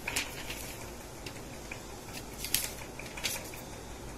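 Paper and packaging being handled: light rustling with a few sharp clicks and taps, the sharpest about two and a half seconds in.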